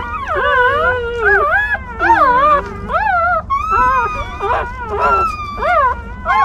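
A litter of newborn puppies crying together: several high, wavering whines overlapping with almost no break.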